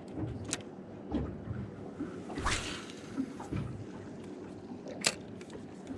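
Water lapping and sloshing against a small boat's hull, with a sharp knock about half a second in and another about five seconds in, and a short splashy rush about halfway through.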